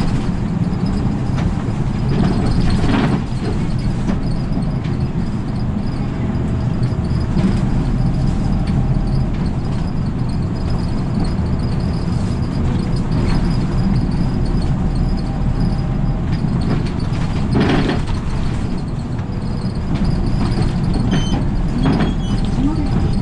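City route bus driving along, heard from inside the cabin: a steady low engine drone and road noise, with a couple of short knocks or rattles.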